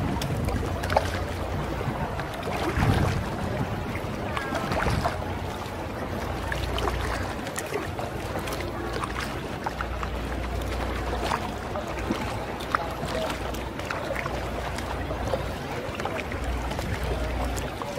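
Paddle strokes and water splashing and lapping around an inflatable canoe moving on calm water, with a steady low wind rumble on the microphone.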